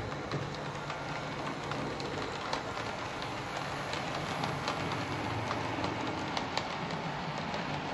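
Model steam locomotive and passenger coaches running along the layout's track: a steady low running hum with a constant patter of small metallic wheel clicks over rail joints and points.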